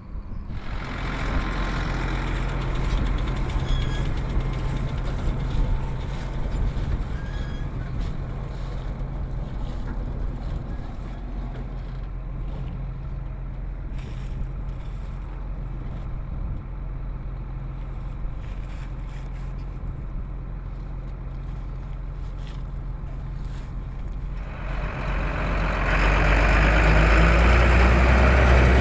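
Tractor diesel engine running steadily as it pulls a straw baler, a constant drone with machinery noise, growing louder about three seconds before the end.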